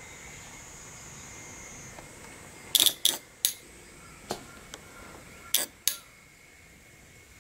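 A run of sharp, light metallic clicks starting about three seconds in, some in quick pairs, over a faint steady hiss.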